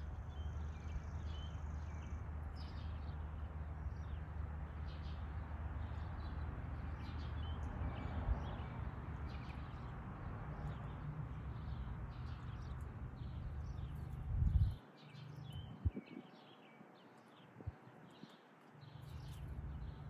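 Small birds chirping over and over in short notes, over a steady low rumble. About fifteen seconds in there is a brief thump, after which the rumble drops away for a few seconds and then returns.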